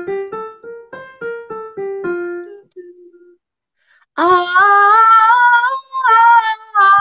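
A piano plays a short run of notes as the cue, and then a woman sings a vocal scale exercise that climbs from about F4 up to C5 and back down. This is the last repetition, in which she lightens up and leaves her chest voice toward the top.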